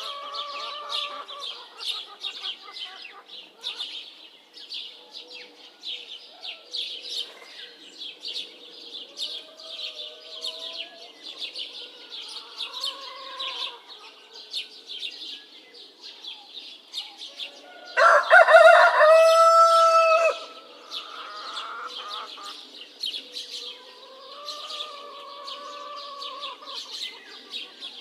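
Roosters crowing in a village at dawn: one close, loud crow lasting a couple of seconds about two-thirds of the way through, with fainter crows from farther birds before and after it. Small birds chirp rapidly and continuously throughout.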